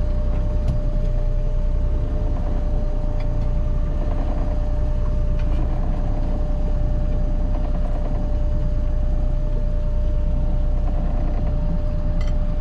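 A boat's engine running steadily, with a low rumble and a constant high whine over it.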